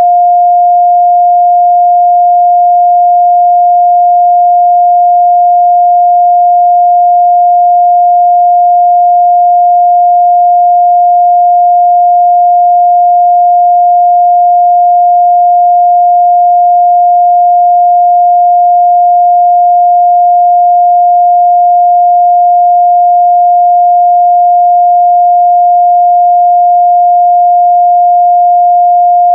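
Continuous 706 Hz sine-wave test tone, one steady pure pitch held at a constant loud level.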